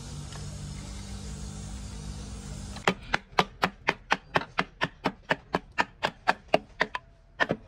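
Steady low machine hum, then about three seconds in a run of sharp, evenly spaced hammer blows, about four a second. After a short pause near the end, two more blows follow.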